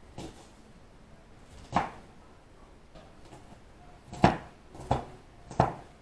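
Knife chopping vegetables on a cutting board: five sharp chops at uneven intervals, the loudest about four seconds in.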